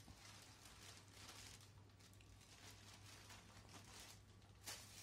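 Faint rustling of a nylon carry bag and plastic wrapping as a tripod is slid out of the bag, with one sharper rustle near the end, over a low steady hum.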